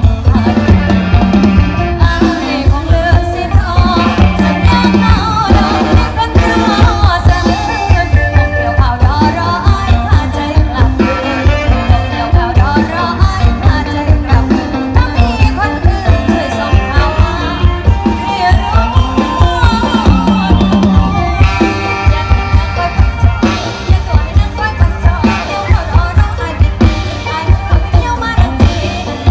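Live Thai mor lam band music played through a loud PA, with a woman singing the melody over electric guitars and a steady kick-drum beat.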